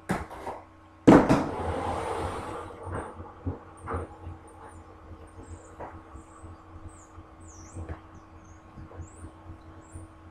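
Knocks and clunks of things being handled and shifted, with a loud bang about a second in followed by a couple of seconds of scraping, then scattered lighter knocks.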